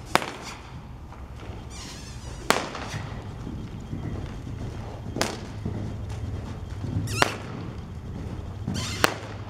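A longe whip cracked five times, about every two seconds, with a brief swish before some of the cracks, driving a loose horse on around the arena.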